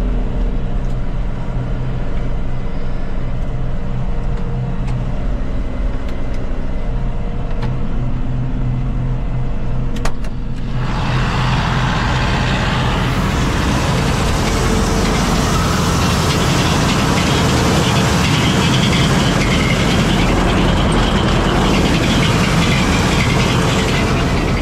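John Deere 5100M tractor's four-cylinder diesel engine running steadily. About ten seconds in, after a click, a much louder, noisier mechanical clatter joins it and goes on steadily.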